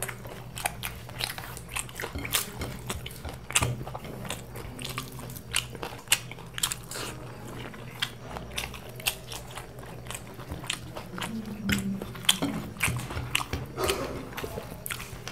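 Close-miked chewing and crunching of mughlai paratha eaten by hand: a quick, irregular run of wet mouth clicks and crunches, over a low steady hum.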